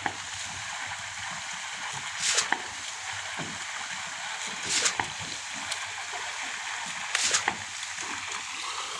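Wet concrete splattering out of a pump hose onto a slab in surges about every two and a half seconds, one with each stroke of the concrete pump, over a steady hiss.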